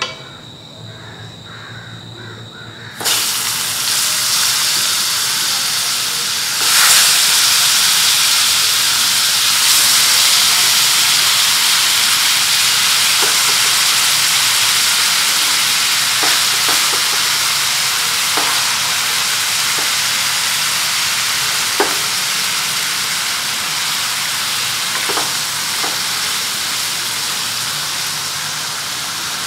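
Peppered chicken breasts frying in foaming fat in a nonstick pan: a quieter sizzle of the fat alone, then a loud, steady sizzle starting suddenly about three seconds in as the meat goes in, swelling again around seven seconds. A wooden spatula clicks against the pan now and then.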